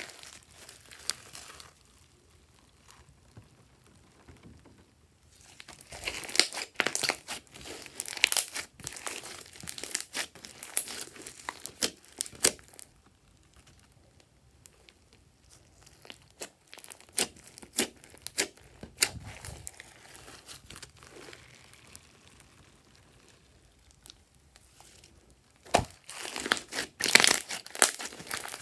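Glossy slime being squished, pressed and stretched by hand: sticky clicks and pops, coming in dense clusters about a fifth of the way in and again near the end, with quieter, sparser clicking while it is stretched between.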